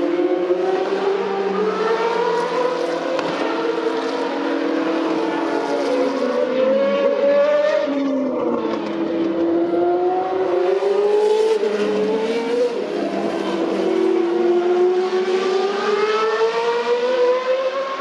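Engines of two or more Boss GP open-wheel racing cars at high revs, their pitches overlapping, climbing through the gears and falling back on the lift-off into corners.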